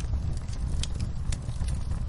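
Wood fire in a fireplace crackling, with sharp irregular pops over a steady low rumble, and rain on a window.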